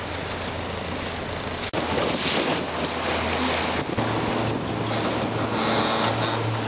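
A small boat's motor running under way, with water rushing past the hull and wind buffeting the microphone. The motor's low hum steps up in pitch about four seconds in.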